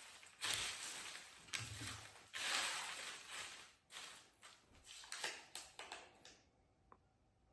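Folded paper slips rustling and crinkling in irregular bursts as a hand stirs through a heap of them and draws one out; the rustling stops about six seconds in.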